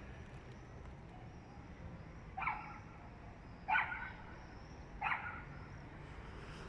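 A dog barking three times, about a second and a half apart, over a low steady background hum.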